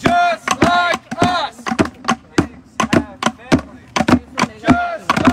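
Protest drums struck with drumsticks, beating a steady quick rhythm. Voices chant over the beat at the start and again near the end.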